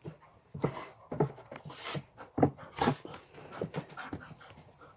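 Kyrgyz taigan sighthounds play-fighting, panting in short, quick breaths roughly every half second.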